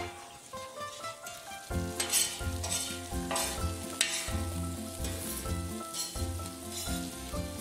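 Olive oil and anchovies sizzling in a large stainless steel frying pan while a long metal spoon stirs it, with a few louder scrapes of the spoon. Background music plays under it.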